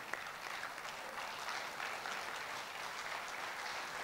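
Audience applauding, light and steady.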